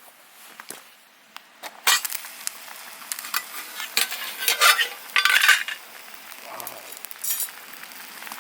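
A metal utensil clinking and scraping against a camping pot as food is stirred over an open fire. The scrapes and clinks start about two seconds in and come thickest in the middle.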